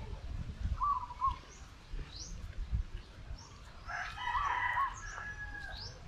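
A rooster crowing once, a call of almost two seconds starting about four seconds in, with a shorter call near the start. Small birds give short rising chirps throughout, over a low rumble.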